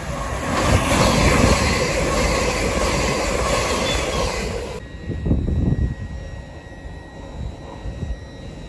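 LNER Azuma (Hitachi 800-series) train passing close at speed: a loud rush of air and wheel-on-rail noise that cuts off abruptly about five seconds in. After that, a much quieter low rumble of a train moving slowly.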